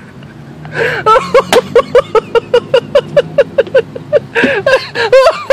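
A person laughing hard in rapid, high-pitched bursts of about five a second, after a brief pause near the start.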